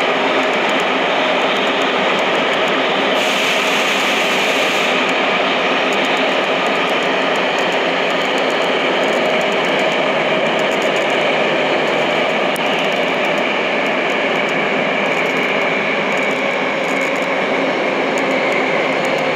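Tokyo Metro Namboku Line subway train running at a steady speed, heard from inside the car: a continuous rumble of wheels on rail with a steady hum running through it.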